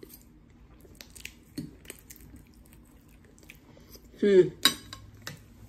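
Close-up eating sounds of a person eating from a fork: soft chewing with scattered small clicks and taps. A short vocal sound comes about four seconds in, followed by a couple of sharper clicks.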